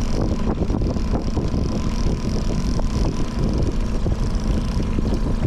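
Boat's outboard motor running steadily at trolling speed, a low rumble, with wind buffeting the microphone.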